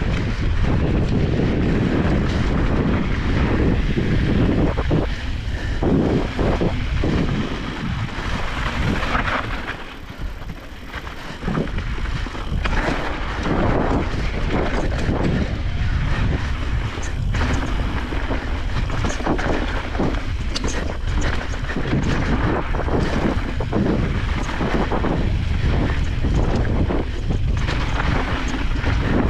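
Wind buffeting the microphone of a camera riding on an e-bike, over the low rumble of the ride, with scattered knocks and rattles; it eases for a moment about ten seconds in.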